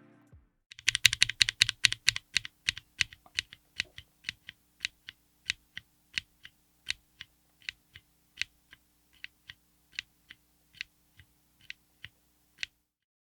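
Mechanical keyboard with LEOBOG Ice Soul ultra-light tactile switches, on an FR4 plate in an aluminium case, being typed on: a quick run of keystrokes for a few seconds, then single keystrokes about twice a second.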